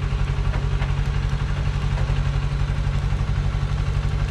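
Diesel engine of a Thaco light truck running steadily at low revs, a low even engine note.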